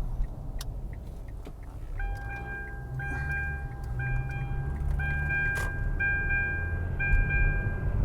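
Low road and engine rumble heard from inside a moving 2007 Kia Optima. From about two seconds in, an electronic warning chime sounds over it, repeating about once a second.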